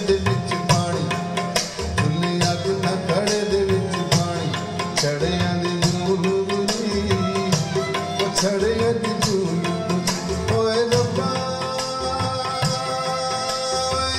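Instrumental passage of a Punjabi folk song played over a hi-fi system (Luxman C-02 preamplifier and M-02 power amplifier driving floor-standing loudspeakers): a steady tabla rhythm with pitch-bending bass strokes under a sustained melody line.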